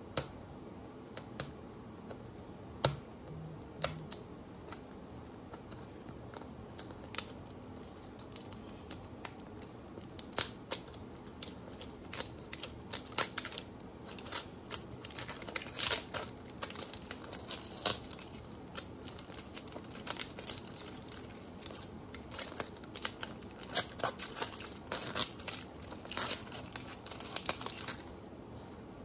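Small plastic toy packaging being handled and opened: a run of short crinkles, snips and clicks. They are sparse at first and grow busier about halfway through.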